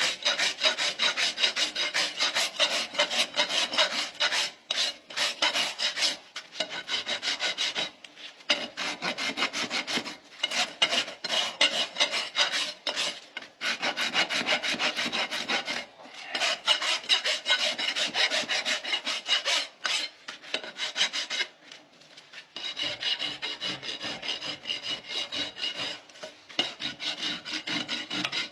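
Farrier's hoof rasp filing a Shire horse's hoof in quick repeated strokes, in runs of several seconds broken by short pauses.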